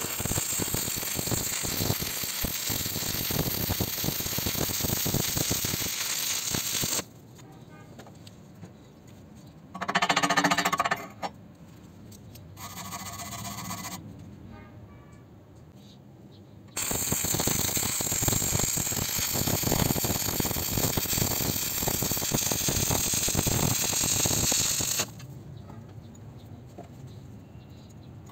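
Stick-welding arc crackling and sizzling in two long stretches, the first about seven seconds and the second about eight, with quieter gaps between and a brief louder burst about ten seconds in.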